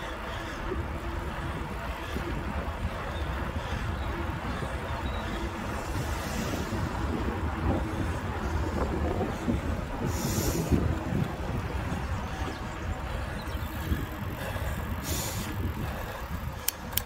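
Wind rumbling on a handlebar-mounted phone's microphone, with tyre noise from a bicycle rolling along a tarmac road. There is a sharp click near the end.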